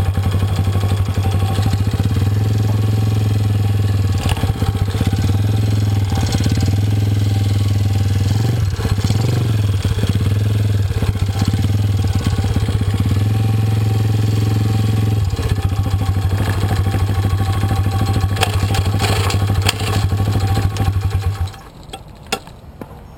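An engine running steadily at a constant low, even pitch, with some clatter over it; it cuts off near the end.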